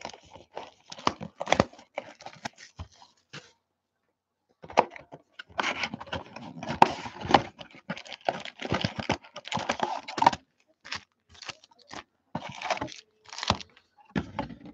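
Cardboard hobby box of Panini Playoff football card packs being opened and emptied by hand: irregular tearing and crinkling of cardboard and foil pack wrappers. A short pause comes about four seconds in, then a dense stretch of crinkling in the middle.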